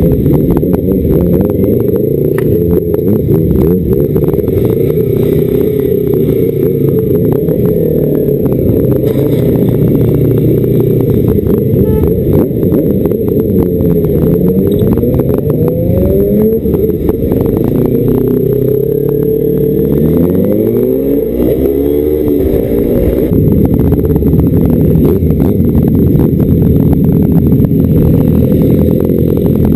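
Motorcycle engine running while riding; its pitch rises and falls several times about halfway through as it speeds up and shifts gears.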